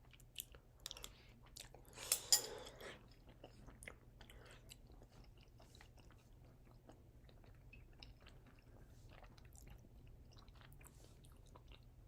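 A person chewing a mouthful of soft mac and cheese close to the microphone, faint, with small wet clicks and a louder burst about two seconds in.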